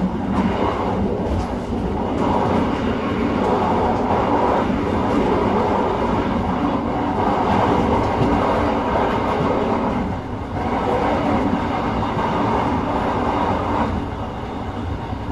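Running noise of a passenger train heard from inside the carriage: a steady rumble of wheels on the rails and the car body moving at speed, dipping briefly about ten seconds in.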